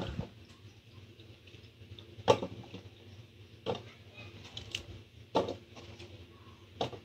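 Pieces of cut bitter gourd being handled on a wooden cutting board and dropped into a pot: a few sharp, separate knocks, the loudest a little over two seconds in.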